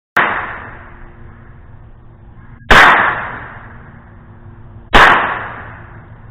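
Three single shots from an AR-15 pistol firing .22 rimfire through a conversion kit, spaced about two and a half seconds apart, each with a sharp crack and a ringing tail that fades over about a second and a half.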